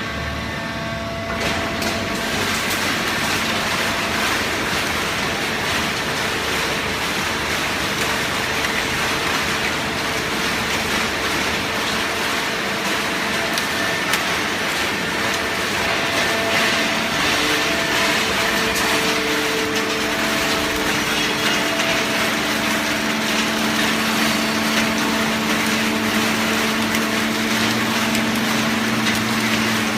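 Horizontal hydraulic baling press running on waste paper: a loud, steady machine noise with a constant hum from its motor and hydraulic pump.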